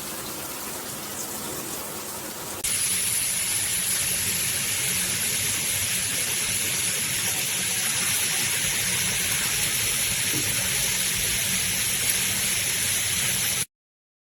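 Water spraying steadily from an 8-inch rainfall shower head. It gets louder and hissier about three seconds in and cuts off abruptly near the end.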